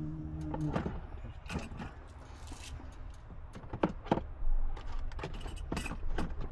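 Rummaging through stored kitchen items: a series of scattered clicks and knocks as containers and seasoning shakers are taken out and set down, over a steady low rumble.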